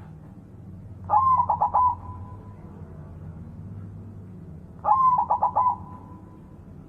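White zebra dove (perkutut) cooing: two song phrases about four seconds apart, each a rising opening note followed by a quick run of about four short coos.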